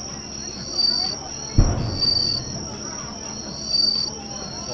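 A firework shell bursting with a single boom about a second and a half in, fading out over most of a second, over steady high-pitched insect chirping.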